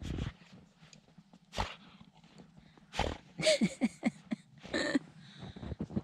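A dog making a quick string of short vocal sounds, each dropping in pitch, about halfway through, with a few dull knocks before them.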